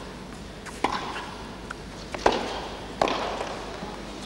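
Tennis ball being hit back and forth in a rally: three sharp knocks of racket and ball, the last two close together, over the steady hum of a crowd in an indoor arena.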